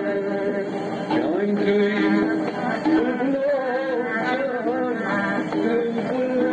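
A man singing a Kashmiri song with instrumental accompaniment, in long held notes that waver in pitch.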